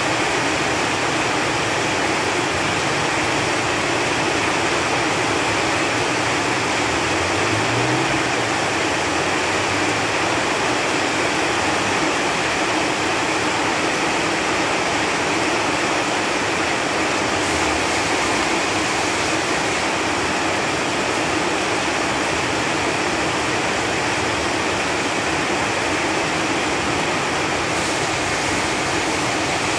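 Steady rain falling on leaves, an even hiss that holds at the same level throughout.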